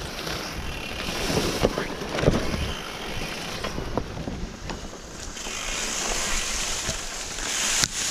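Mountain bike rolling down a dirt single track: tyre and trail noise with scattered knocks and rattles from bumps, the sharpest about two seconds in and near the end, and wind rushing over the microphone.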